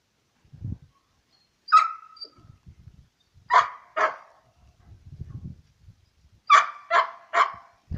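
A dog barking: six short barks, one about two seconds in, a pair in the middle and three in quick succession near the end.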